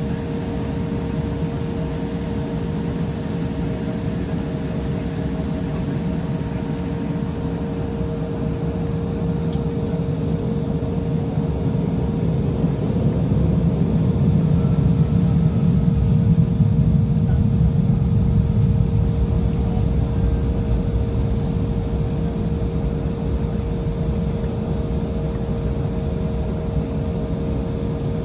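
Cabin noise inside an Embraer 175 taxiing: the steady rumble of its GE CF34-8E turbofans at taxi power with a steady droning tone over it, growing a little louder midway.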